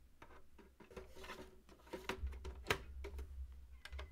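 Plastic drive tray being slid into a Synology DS920+ drive bay and pushed home: a run of light plastic clicks and knocks, the sharpest about two and a half seconds in, over low handling thumps.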